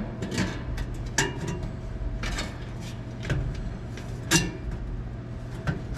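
Irregular metallic knocks and clanks as exhaust pipe sections and hand tools are worked into place, the loudest knock about two-thirds of the way through, over a steady low hum.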